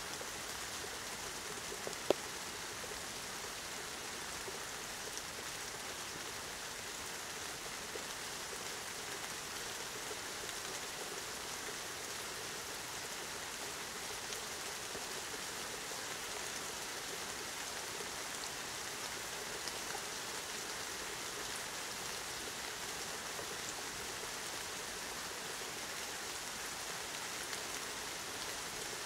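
Steady rain falling, an even hiss of many drops that holds at the same level throughout. There is a single sharp tick about two seconds in.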